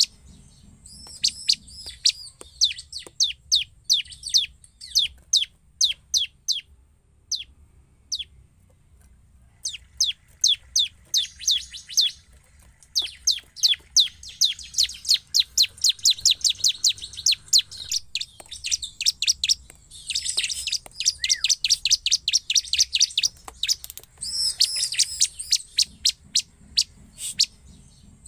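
Bar-winged prinia (ciblek) calling vigorously: runs of sharp, high, down-slurred chips, several a second. A brief lull comes about eight seconds in, and a dense, buzzy stretch follows about twenty seconds in.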